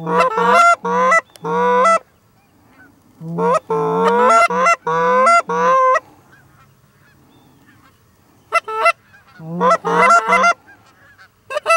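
Hand-held Canada goose calls blown hard and close, calling to an approaching flock of Canada geese. Three bursts of rapid honks and clucks, each note breaking from a low moan up into a higher honk, with short pauses between the bursts.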